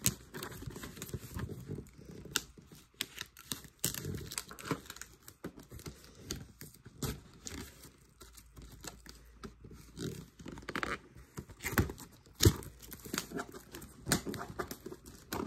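Plastic shrink wrap on a cardboard Pokémon Elite Trainer Box crinkling and crackling under the fingers as the box is handled and turned around, with scattered sharper clicks.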